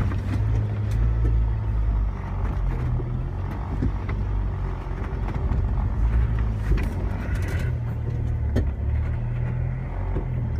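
Vehicle engine running at low speed while driving a rough dirt trail: a steady low rumble, with a few short knocks and clatter from the bumps and ruts.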